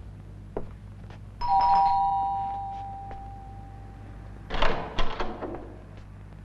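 Two-note electric doorbell chime, a higher and a lower note struck almost together, the lower one ringing on for about three seconds. Then a short clatter of knocks and rattles at the door.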